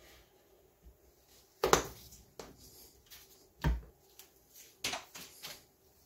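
Handling knocks on a workbench: a utility knife set down on a cutting mat and an aluminium printer bed being shifted. There are several sharp knocks, the loudest about a second and a half in and a heavy thump near four seconds, with lighter taps after.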